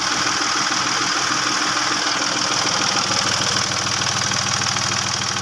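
Mercedes GL 350 diesel's 3.0-litre V6 turbodiesel idling steadily.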